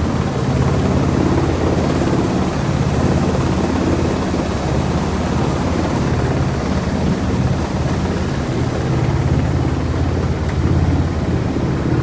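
Helicopter running: a steady low drone of rotor and engine.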